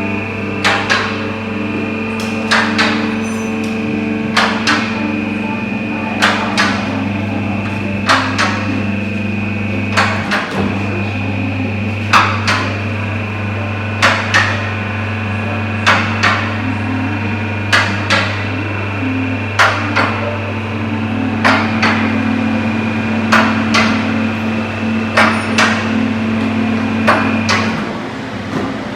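Hammer blows, struck in pairs about every two seconds in an even rhythm, over a steady machine hum that cuts off near the end.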